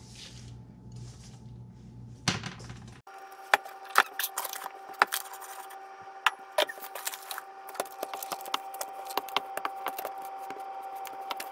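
Bread dough being scraped out of a metal mixing bowl with a spatula, with a sharp knock a little after two seconds. Then a run of small sharp clicks and taps as the dough is handled and kneaded on a floured silicone mat, over a faint steady hum.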